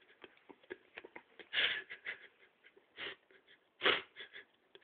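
A drowsy person's heavy, breathy breaths, three short bursts with the loudest near the end, as they are roused from sleep.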